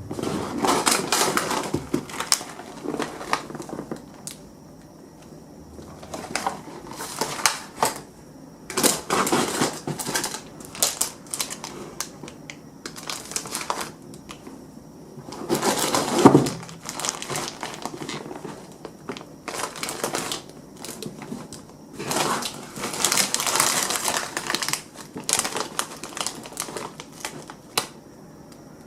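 Household handling sounds in irregular bursts: crinkling and rustling with clusters of small clicks and knocks, separated by short quiet gaps.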